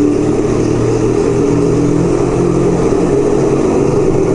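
1975 Kawasaki KZ400 cafe racer's parallel-twin engine running steadily at low speed, loud and echoing inside a concrete parking garage.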